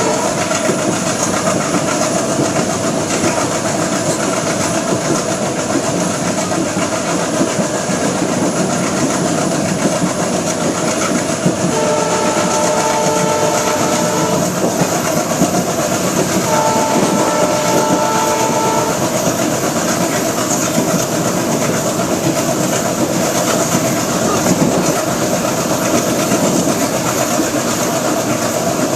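The 13018 Ganadevta Express running along the track, its wheels and rails making a loud, steady noise. A train horn of several tones sounds twice, about 12 and 16 seconds in, each blast lasting about two and a half seconds.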